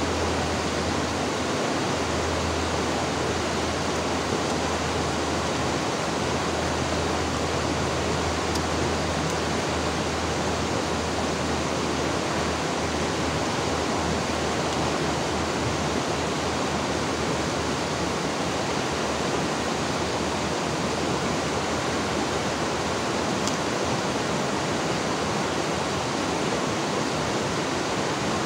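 River water flowing, a steady babbling rush.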